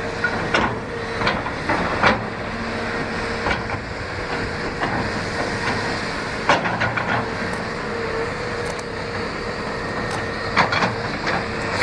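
Heavy machinery runs steadily with a thin constant whine, while sharp knocks and bangs come at irregular intervals, about seven of them, typical of demolition debris being loaded into a dump truck.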